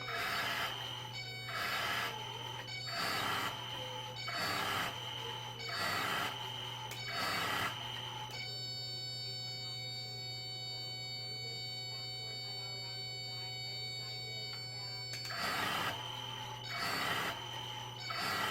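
Machine sounding in even pulses about every one and a half seconds over a steady electrical hum; the pulses stop for about seven seconds partway through and then resume.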